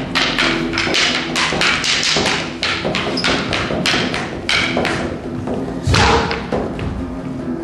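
Escrima sticks clacking together in a fast exchange of strikes, about three to four a second. About six seconds in comes one heavy thud, the loudest sound, as a fighter goes down to the stage floor.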